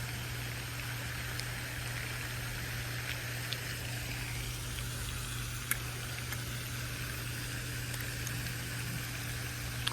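Steady low hum under an even background hiss, with a single faint tick a little past halfway.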